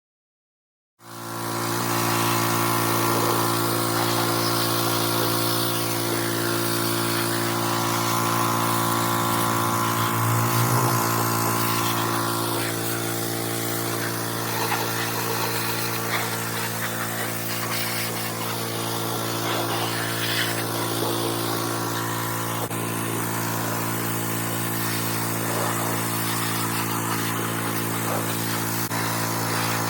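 Small walk-behind lawn mower engine running steadily at an even speed. It starts about a second in and cuts off near the end.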